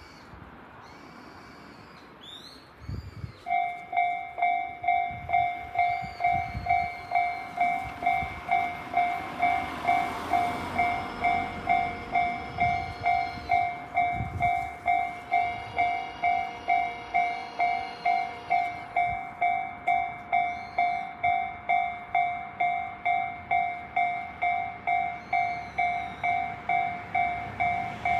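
Japanese level-crossing warning bell of the Tobu Tojo type, starting a few seconds in and then dinging steadily at about two strikes a second: the crossing is warning of an approaching train.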